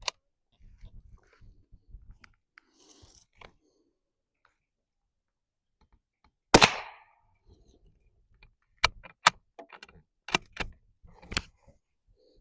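A single .22 rimfire shot from a Remington 582 bolt-action rifle about six and a half seconds in, with faint handling clicks before it. A couple of seconds after the shot comes a run of sharp metallic clicks as the bolt is worked to eject the case and chamber the next round.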